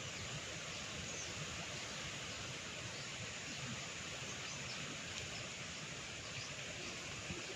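Steady background hiss, with a few faint, brief high ticks scattered through it.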